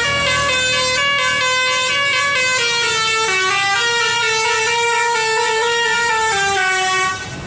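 Basuri telolet musical bus horn playing a melody: a run of loud, held horn notes stepping up and down in pitch, several tones sounding together. It stops shortly before the end.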